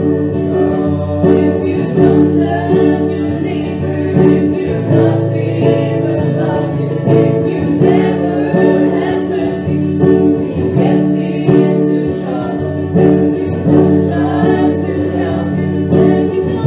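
A group singing a Christian worship song with instrumental accompaniment, the singing and instruments steady throughout.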